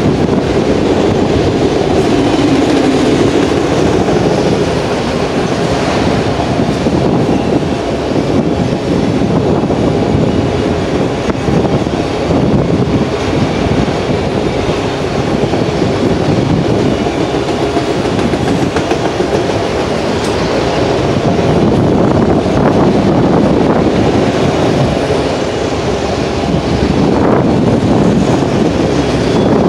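Freight train of autorack cars rolling past close by: a steady, loud rumble of steel wheels on the rails, with a few sharp clicks.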